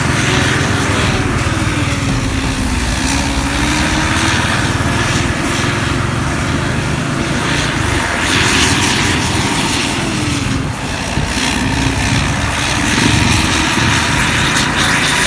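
Loud exhaust of an intercity bus's diesel engine, heard from close behind as the bus drives on, its pitch rising and falling with the revs.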